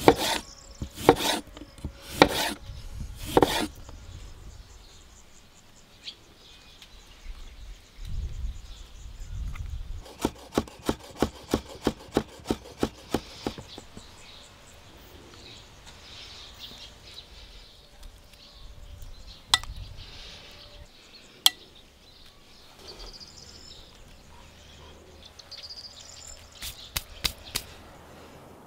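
Chef's knife chopping through a lemon onto a wooden cutting board: four sharp chops about a second apart. A run of quick, light clicks follows later, then a few scattered taps.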